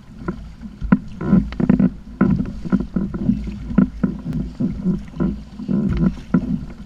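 Water slapping and knocking irregularly against a Hobie sit-on-top kayak's plastic hull, over a steady low rumble.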